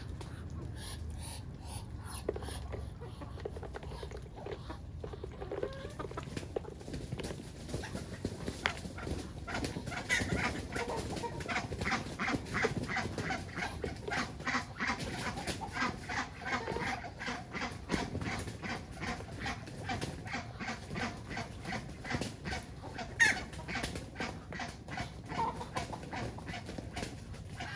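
Farmyard poultry, ducks and chickens, calling, with a long run of short calls repeating several times a second and one louder call near the end.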